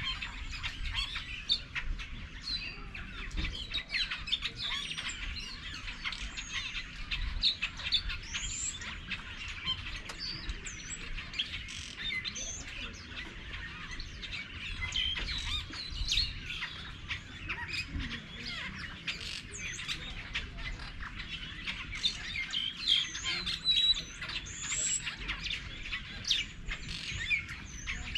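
A dense chorus of many wild birds chirping, whistling and calling over one another without a break, with a low rumble underneath.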